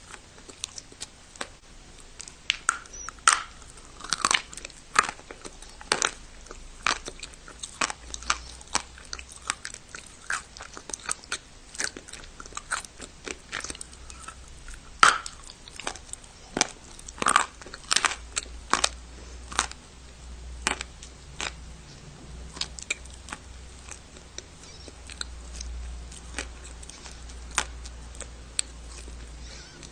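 A person biting and chewing pieces of dry clay close to the microphone, giving irregular sharp crunches and crackles, with the hardest bites about four seconds in and again around fifteen and seventeen seconds.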